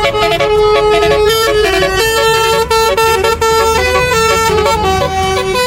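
"Telolet" Basuri multi-tone bus horn playing its tune: a quick run of held horn notes stepping up and down in pitch, several notes a second.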